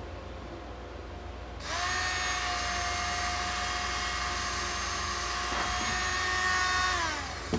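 Small electric rotary tool switches on about one and a half seconds in and whines steadily, spinning a sanded-down needle used in place of a drill bit to bore a hole in the banjo's fingerboard wood for a capo spike. Near the end it switches off and the whine falls as it spins down.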